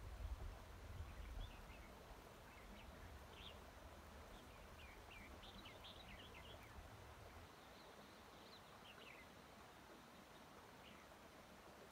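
Faint, brief bird chirps scattered through, over a low background hiss, with a low rumble in the first second and a half.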